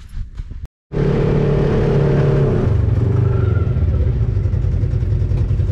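Engine of a 1000cc Polaris RZR dune buggy running steadily, heard from the driver's seat, starting about a second in. Its pitch drops a little partway through.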